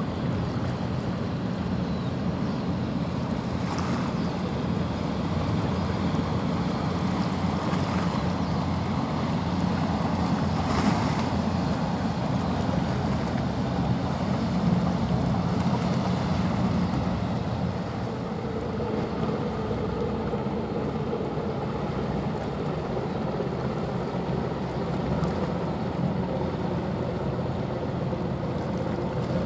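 Small coastal general cargo ship passing close by: the steady low hum of its engine under the rushing wash of its bow wave and hull on the water, with wind buffeting the microphone. A faint higher hum joins a little past the halfway point.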